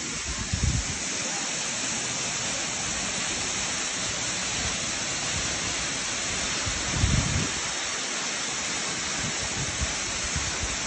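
Steady rush of a waterfall plunging into a rock pool, with a few brief low rumbles along the way.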